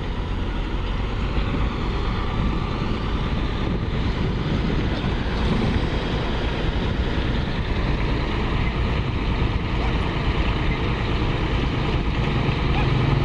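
Diesel engines of heavy construction machinery running steadily, a continuous low rumble with no distinct knocks or changes.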